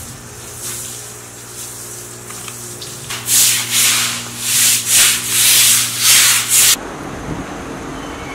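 Water splashing onto a concrete floor, then a long-handled stiff brush scrubbing the wet concrete in loud back-and-forth strokes, about two a second, stopping abruptly near the end.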